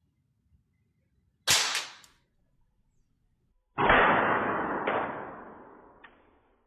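Cometa Galaxy 220 air rifle fired at a ceramic tile, the pellet cracking the tile: a sharp crack about a second and a half in, then a louder crack about four seconds in that dies away over about two seconds, with two small knocks as the broken pieces drop.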